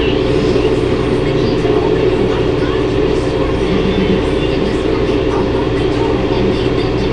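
Steady droning hum and hiss with several constant low tones and no change in level, like a fan or machine noise picked up by the microphone.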